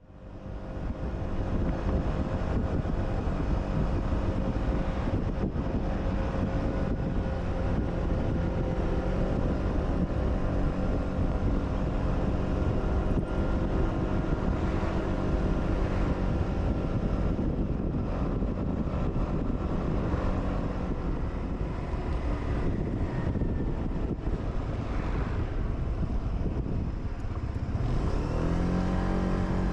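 Suzuki Burgman 200 scooter's single-cylinder engine running steadily while riding, with wind rushing over the handlebar-mounted microphone. Near the end the engine note falls and rises again as the scooter slows and turns at a junction.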